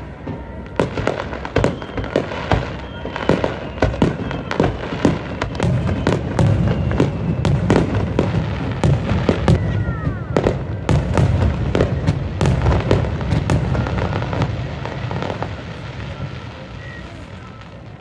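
Fireworks display going off: rapid bangs and crackles that build into dense, continuous booming in the middle, then thin out and fade near the end.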